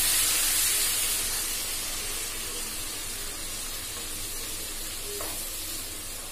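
Boiled sangri beans sizzling in hot oil and spices in a non-stick kadhai as they are stirred with a wooden spatula. The sizzle fades over the first few seconds, then carries on more quietly.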